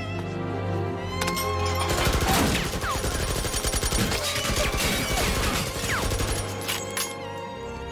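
Sustained automatic rifle fire, beginning about two seconds in and lasting around five seconds, over orchestral string music.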